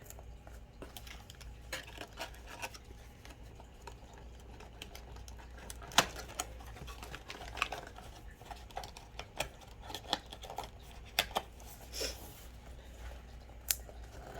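Small cardboard blind boxes and plastic packaging being handled and opened by hand: irregular light clicks, taps and crinkles, with a sharper snap about six seconds in and a cluster of taps near the end.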